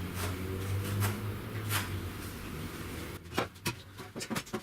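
Scattered small clicks and taps of hands handling tools and timber while marking out, over a steady low hum that drops away about three seconds in.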